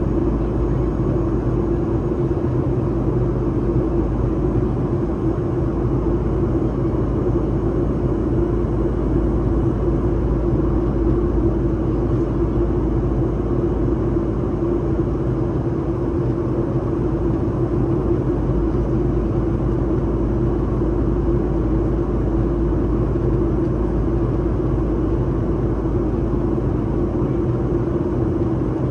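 Steady cabin noise inside a jet airliner descending to land: the engines' even drone and the rush of air over the fuselage, with a constant low hum.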